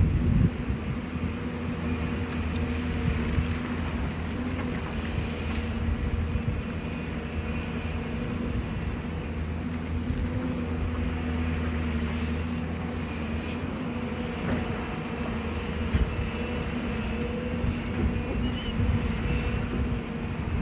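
Excavator's diesel engine running steadily with a constant hum, with an occasional faint knock from the machine working.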